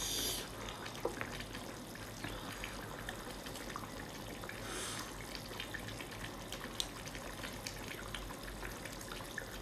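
Wet squelching and small clicks of cooked sea snail shells being handled and their meat picked out of the sauce, with short hisses at the start and about five seconds in.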